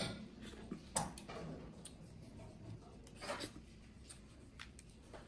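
Boiled red crab being eaten by hand: quiet, scattered clicks and cracks of shell being bitten and picked apart, with soft sucking at the shell. The sharpest cracks come about a second in and again just past three seconds.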